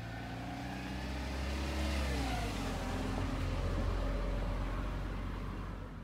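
A car driving past on a nearby road: engine and tyre noise build to a peak about two seconds in with the engine pitch falling, then a low engine rumble carries on and drops away at the end.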